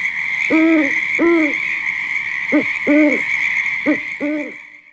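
Owl hooting sound effect: three pairs of low hoots, each a short hoot followed by a slightly longer one, over a steady high-pitched hiss of night ambience. It fades out near the end.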